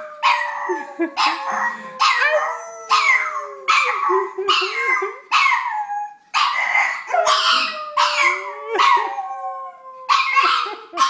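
A pug howling along with a person: repeated short yowls over a long howl that is held and slowly falls in pitch, breaks off briefly around the middle, and starts again.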